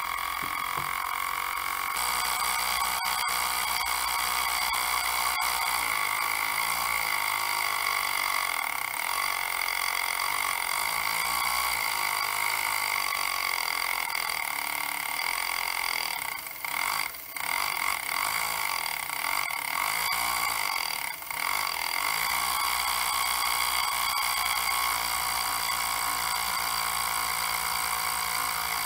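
Small brass model steam engine running fast on steam from a vertical boiler: a steady high-pitched hum with hiss. It falters briefly twice a little past halfway.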